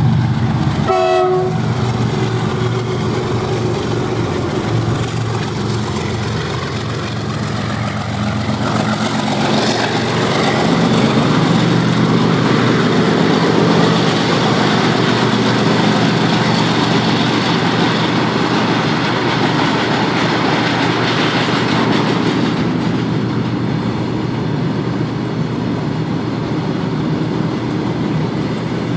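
Twin WDG-4G diesel-electric locomotives (GE Evolution series) running, with a short horn blast about a second in. From about nine seconds in the sound fills out into a heavier, noisier rumble of a train in motion.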